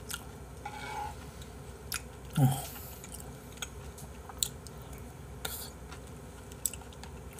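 Close-up eating of abalone rice porridge from a metal spoon: chewing and mouth sounds with scattered small clicks. About two and a half seconds in there is one short, louder vocal sound that falls in pitch.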